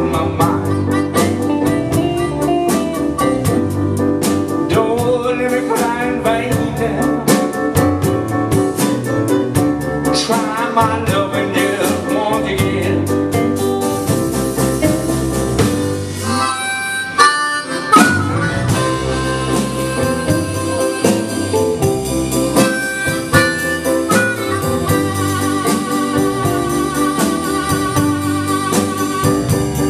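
Live blues band playing an instrumental passage: amplified harmonica leading over electric guitar, digital piano and drums in a steady groove. About sixteen seconds in the band drops back briefly, then comes in again on a sharp loud accent.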